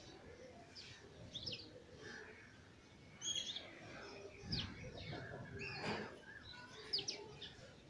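Faint bird chirps in the background: a few short, high calls scattered a second or more apart.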